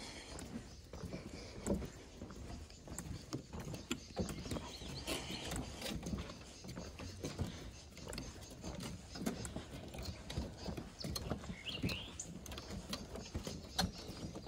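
Footsteps knocking on a wooden boardwalk in an uneven walking rhythm. A short bird chirp is heard about two-thirds of the way through.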